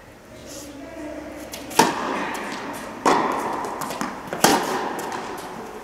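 Three tennis balls struck hard by racket strings in a rally, about one and a half seconds apart. Each hit echoes on in a large indoor tennis hall.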